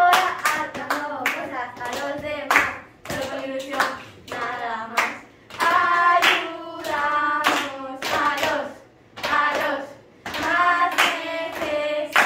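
Group of young girls singing together in unison while clapping their hands in rhythm, in a small room.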